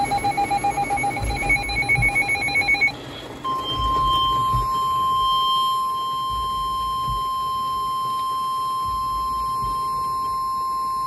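Midland NOAA weather radio alerting: a rapid pulsing beep for about three seconds, then, after a brief pause, the long steady 1050 Hz warning alarm tone of NOAA Weather Radio. The tone signals that a warning, here a severe thunderstorm warning, is about to be read.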